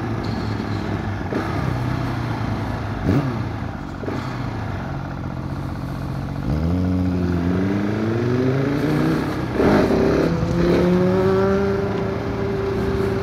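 KTM 690 SMC R single-cylinder engine heard from the rider's seat, on its stock Euro 5 exhaust. It runs steadily at low revs, then about halfway through opens up with the pitch climbing. Near the end there is a drop in pitch as it shifts up, and it then pulls on again.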